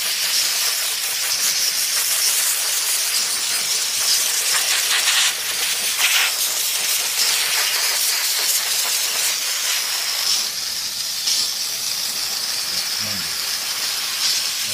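Vapor steam cleaner nozzle hissing steadily as it jets steam over a desktop fan's grille, the hiss wavering a little as the nozzle moves.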